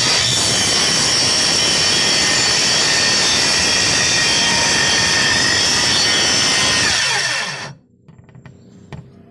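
Electric power tool running steadily with a loud, high whine, then its pitch drops and it cuts off about seven and a half seconds in, leaving a few faint clicks.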